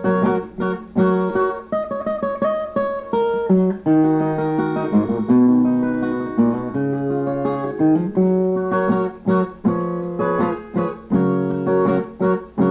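Brazilian ten-string viola played alone in an instrumental interlude between sung verses, with runs of plucked melody notes and strummed chords.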